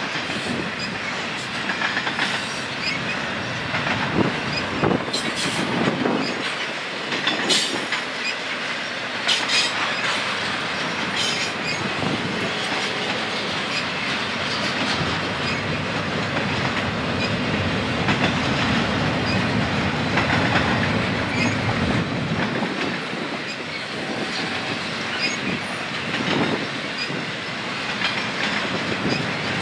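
Double-stack intermodal freight train's container cars rolling past, steel wheels clacking and rumbling over the rail with a steady din. A few short high squeals of wheels on rail come in the first half.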